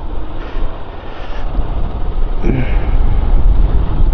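Motorcycle riding along, engine running under heavy wind rumble on the microphone.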